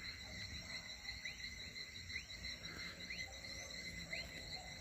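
Evening insect chorus of crickets, a steady high chirring, with a short rising chirp repeating about once a second over it.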